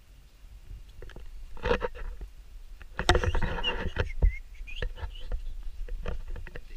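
Rustling and handling noise from a handheld camera carried through brush, with scattered clicks and knocks; it is loudest from about three seconds in.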